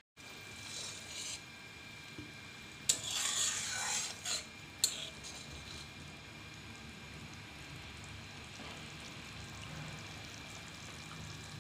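A spatula stirring fish through a bubbling gravy in a metal kadai, scraping and knocking against the pan in two short spells in the first five seconds. After that the gravy simmers steadily.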